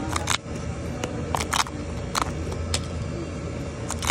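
Paper pull-tab lottery tickets being torn open by hand: about eight short, sharp paper snaps at irregular intervals as the perforated tabs are ripped back, over a low steady hum.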